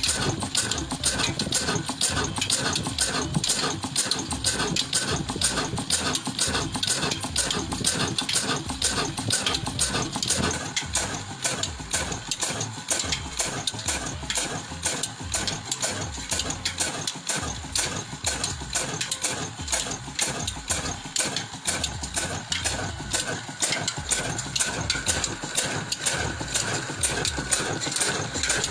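Old horizontal stationary diesel engine with large flywheels running steadily under its own power, a rapid, even beat of exhaust and combustion knocks.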